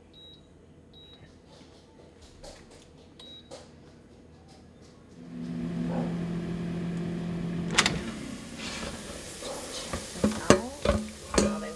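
Avalon Bay AF25BSS air fryer: a few short beeps from its touch panel as the timer is set, then its fan running with a steady hum. About eight seconds in, a sharp click as the basket is pulled out, followed by clattering and knocks of the stainless-steel basket.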